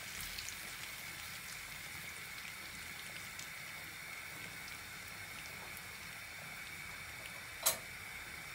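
Dried mint frying in melted butter and oil in a small frying pan: a faint, steady sizzle with fine crackles while it is stirred with a metal spoon. One sharp click about three quarters of the way through.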